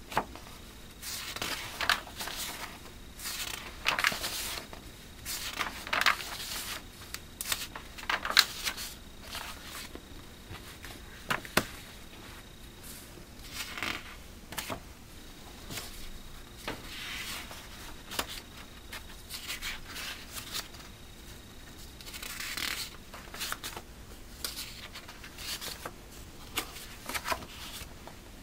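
Paper magazine pages being turned and the magazines handled by hand: a string of short rustles and swishes every second or two, with a few sharper flicks.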